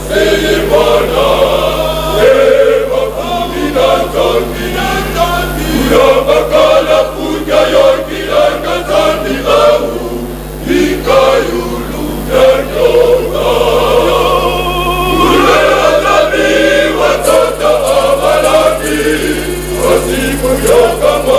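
A church youth choir, mostly young men's voices, singing a gospel song together without a break.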